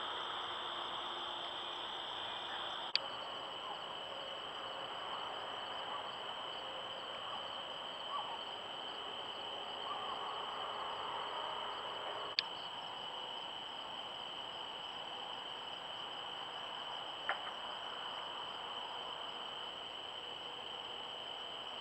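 Steady night chorus of crickets and other insects, a constant high buzz. Two sharp clicks, about 3 and 12 seconds in, where one trail-camera clip cuts to the next.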